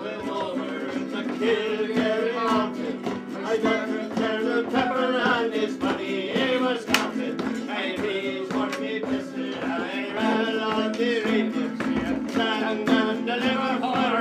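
Folk music: an acoustic guitar strummed steadily while a man sings.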